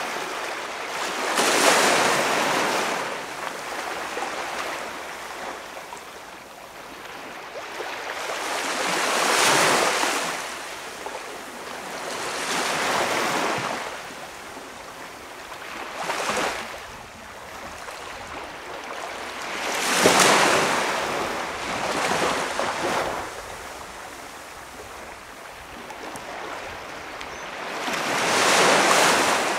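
Small waves breaking and washing up on a calm beach. The surf swells and fades in irregular surges every few seconds, about seven in all.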